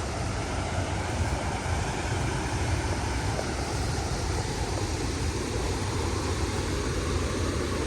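Steady rushing of water pouring over a waterfall and its rapids.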